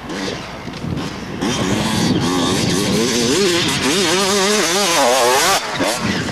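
Dirt bike engine revving hard as the rider comes up close and passes, the pitch rising and falling with the throttle. It grows loud about a second and a half in and drops away suddenly near the end.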